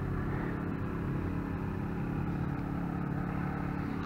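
An engine running steadily, an even low hum with no change in speed.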